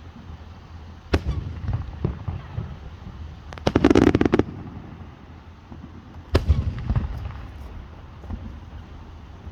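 Fireworks going off: a sharp bang about a second in, a quick run of crackling near the middle, then another bang followed by a low rumble, with scattered smaller pops between.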